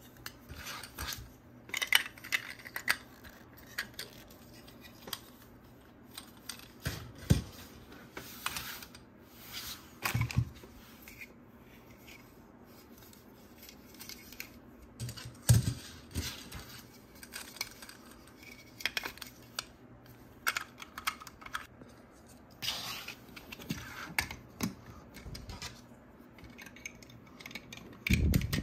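Hands unboxing plastic toys: irregular clicks, taps and rustles of packaging and plastic pieces being handled, with a few duller knocks.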